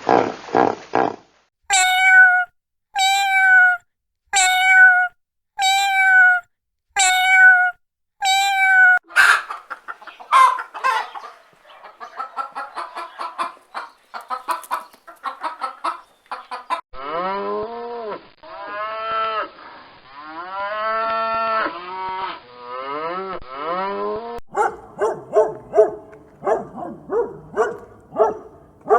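A run of different animal calls, one short clip after another: first a string of six short high calls about a second apart, then a jumble of calls, then several overlapping calls that rise and fall in pitch, and finally a quick series of short calls near the end.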